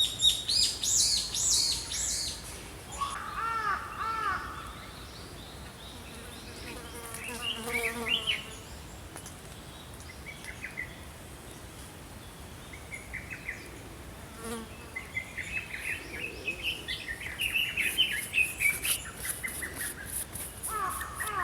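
Small songbirds chirping and singing, several different short calls and phrases overlapping. A high, rapid buzzing trill grows stronger in the later part.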